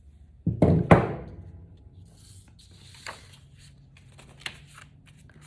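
Two sudden knocks of something set down or handled on a tabletop about half a second to a second in, followed by a few faint taps and paper rustles.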